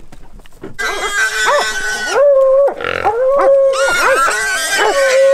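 Feral hog squealing, held by catch dogs: long, loud high-pitched squeals broken by short rising-and-falling cries, starting about a second in.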